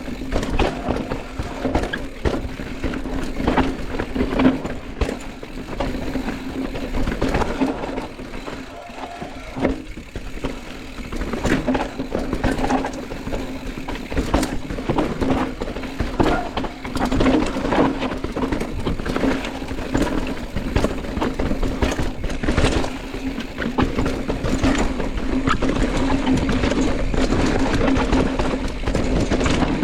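Fast ride down a rough dirt trail: irregular knocks and rattles over bumps and wind on the microphone, with a steady low hum throughout.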